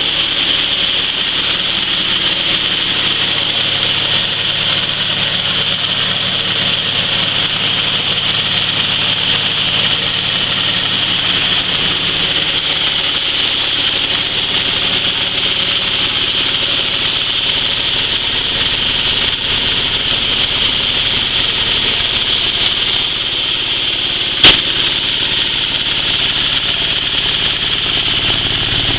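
Iron dry-coffee huller running steadily, a low engine hum under a strong, even hiss. One sharp knock about five seconds before the end.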